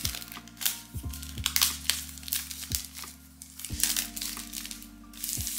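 Thin clear plastic wrap crinkling and crackling as it is torn and peeled off a cardboard box, over soft background music with sustained low notes.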